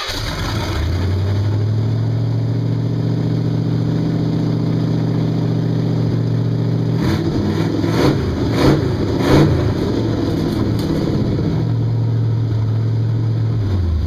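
Rat rod's engine idling steadily, then revved up several times from about seven seconds in, with three sharper blips of the throttle, before settling back to a steady idle near the end.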